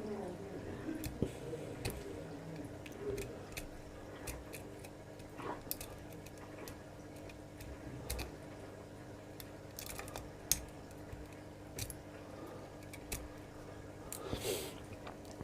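Irregular light clicks and scrapes of a lock pick and tension wrench working the pins inside a large laminated 5-pin padlock during single-pin picking.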